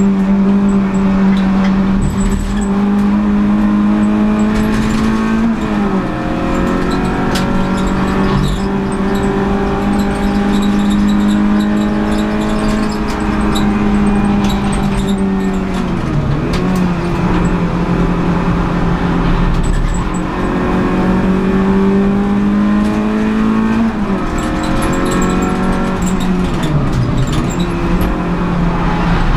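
Renault Clio Sport 182's 2.0-litre four-cylinder engine running hard at high revs, heard from inside the cabin. The note climbs slowly and drops sharply about three times, recovering each time.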